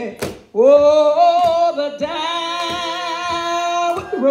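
A woman singing an old gospel song without accompaniment into a handheld microphone, drawing out long held notes that slide up into pitch. A few sharp hits sound behind the singing.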